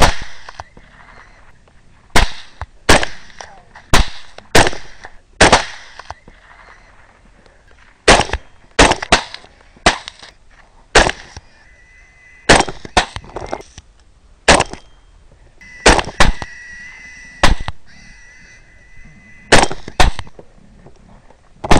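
Rifle shots fired in quick succession at feral hogs, about twenty sharp reports, often less than a second apart. Twice, between shots, a faint high drawn-out squeal can be heard.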